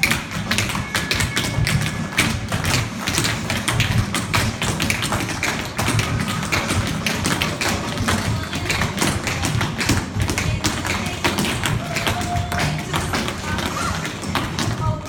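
Many small children's shoes tapping and stamping on a wooden studio floor: a dense, irregular run of sharp clicks and light thuds, with music playing.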